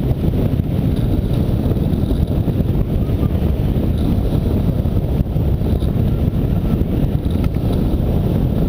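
Airflow of a hang glider in flight buffeting the camera microphone: a steady, loud, low wind rush.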